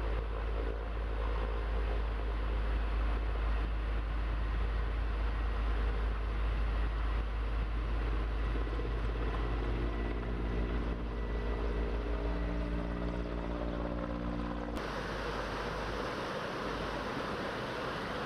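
Heavy low rumble of a running engine, with a steady pitched hum joining it about halfway through. Near the end it cuts off abruptly and is replaced by an even rushing noise.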